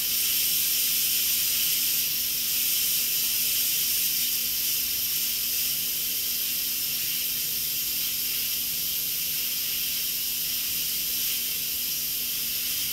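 Instant Pot electric pressure cooker venting steam through its pressure release valve during a quick release: a steady, high hiss of escaping pressure that eases off slightly toward the end.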